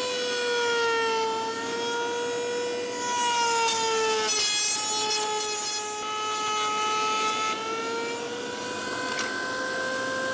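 Table-mounted router running at speed with a high whine. Its pitch sags in the middle as the router bit cuts a groove in an oak frame piece, with added cutting hiss, then climbs back as the cut ends.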